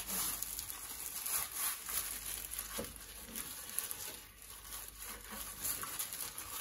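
Loose plastic food-prep gloves crinkling and rustling in irregular bursts as hands work seasoning into a raw spatchcocked chicken.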